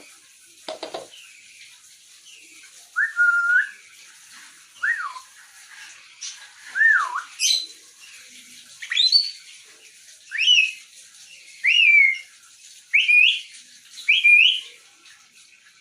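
Grey parrot whistling a string of about ten short notes, roughly one every second, each sliding up or down in pitch.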